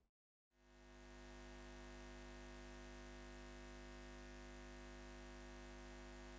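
A faint, steady drone of several held tones fades in about half a second in and holds unchanged. It is the end-screen audio: a sustained synthesizer pad or electric neon-style hum.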